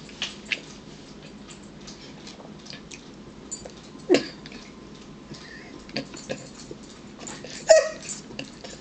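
Small clicks and scrapes of a fork on a ceramic plate, with a dog giving short whimpers, one about four seconds in and another near the end.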